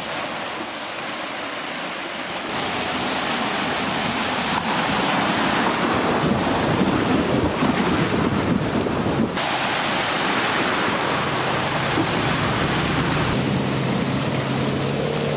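Floodwater surging and splashing around a 2014 Range Rover Sport as it wades through deep water, growing louder as the vehicle comes close. A low steady engine hum comes through in the last few seconds.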